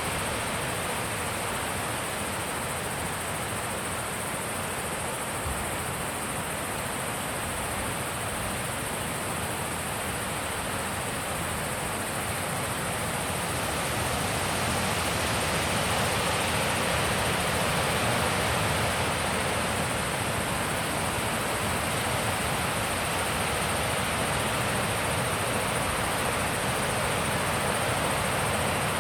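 Wind blowing in a steady rush that swells louder about halfway through, with a thin steady high tone above it.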